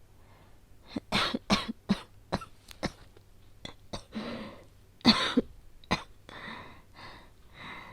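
A woman's acted asthmatic cough from a cold, coming in fits: a quick run of sharp coughs about a second in, a breath drawn in around four seconds, and another hard fit around five seconds in. Audible breaths follow near the end.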